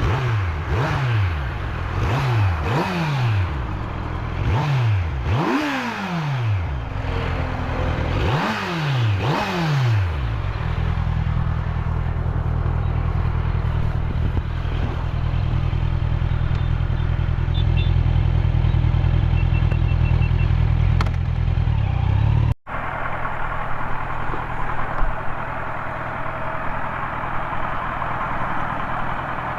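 Kawasaki Z900's stock inline-four engine revved in a string of quick throttle blips, its pitch jumping up and falling back several times, then running at a steady note. After a sudden cut about three-quarters of the way in, rougher road and traffic noise without the clear engine note.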